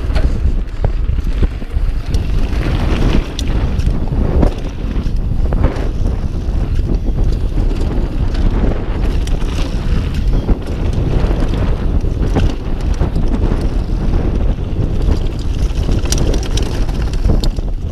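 Mountain bike riding fast down a dirt trail: steady wind on the microphone and tyre rumble, with frequent small clicks and knocks from the bike rattling over bumps.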